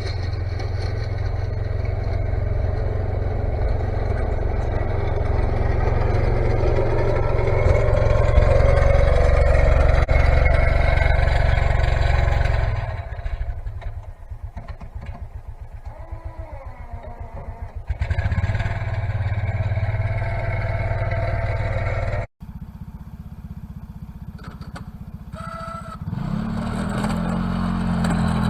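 Vehicle engine running steadily, dropping to a chugging idle partway through, then picking back up and revving with rising pitch near the end.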